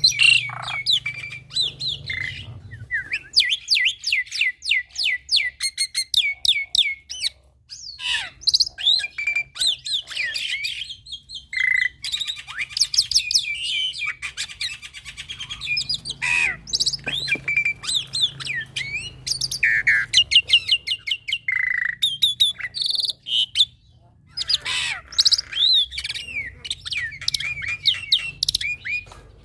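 A young black-winged myna (jalak putih) singing a fast, varied song of chirps, whistles, trills and harsh squawks, full of mimicked phrases. There are brief pauses about a third of the way in and again near three quarters.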